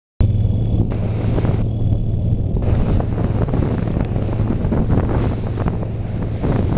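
Wind buffeting the microphone over the steady low hum of a boat's engine, with sea water rushing past the hull.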